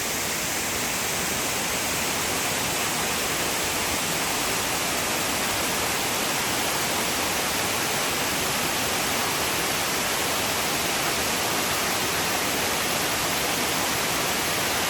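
Cascading waterfalls pouring down a hillside, a steady, even rush of falling water.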